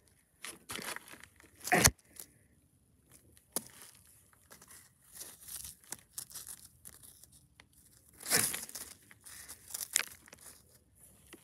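Irregular crunching and scraping of gravel and dirt as plastic toy animal figurines are pushed over it and set down by hand, with louder crunches about two seconds in and about eight seconds in.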